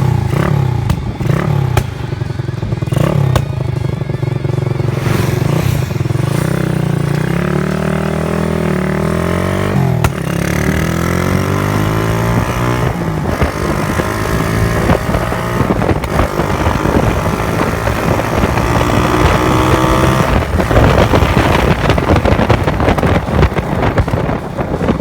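Honda Wave 110's small single-cylinder four-stroke engine running under way, freshly overhauled. Its pitch drops about ten seconds in and then climbs steadily as it accelerates. Wind rushing over the microphone grows stronger near the end.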